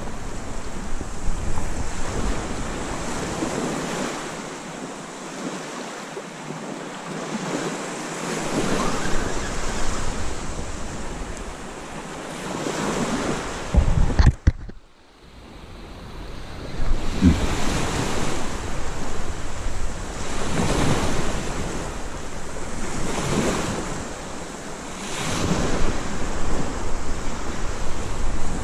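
Sea surf washing up a beach in swells every few seconds, with wind buffeting the microphone. A loud bump about halfway through is followed by a brief drop in sound.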